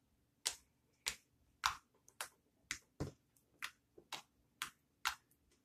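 Homemade clear slime made from peel-off face mask and Tide being pressed and poked with a fingertip, giving about ten sharp clicks at roughly two a second.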